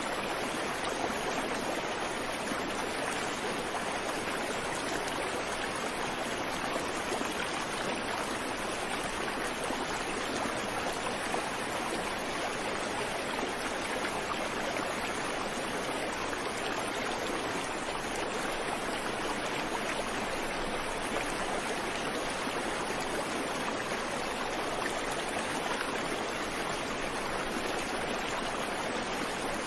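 Creek water flowing steadily over rocks, a continuous even rush with no birds.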